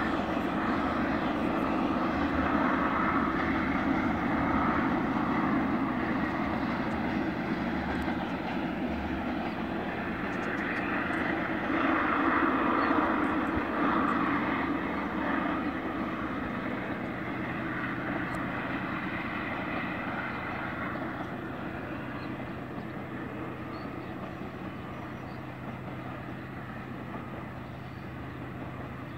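TE33AC diesel locomotive engines running hard as they haul a long grain train up a steep grade, a steady drone with a low hum that slowly fades as the train pulls away.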